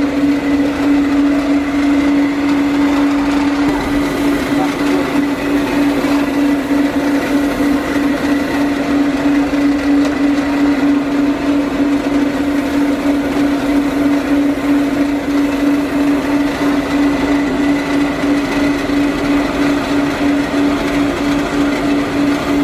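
An electric motor running with a loud, steady hum at one pitch, over a constant rushing noise. The hum begins to waver slightly a few seconds in.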